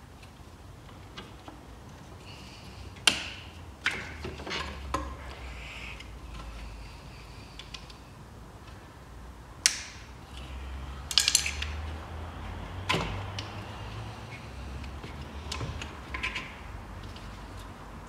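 Sharp plastic clicks and snaps of a Ford Transit Connect's engine computer (PCM) wiring connector and its latch being worked loose by hand, a stubborn plug that needs teasing out. The loudest snaps come about three seconds in and near ten seconds, with a quick rattle of clicks just after, over a low steady hum.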